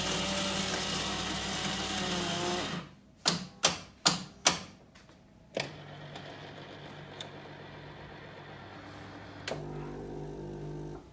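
Coffee vending machine working through a drink after payment. A loud motor runs for about three seconds, then five sharp clacks come in quick succession, then a quieter steady hum, with a second motor tone joining near the end.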